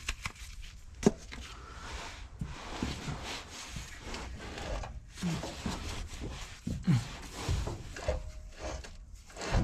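Scraping and rubbing from work under a backhoe's transmission, with a sharp knock about a second in and a few softer knocks later.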